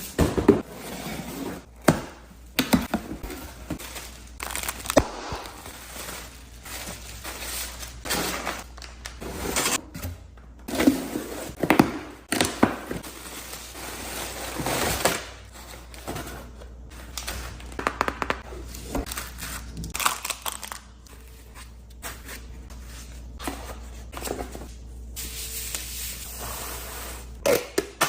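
Packaging being opened and handled: irregular rustling, crinkling, tearing and scraping, broken by sharp knocks and thunks as items are picked up and set down.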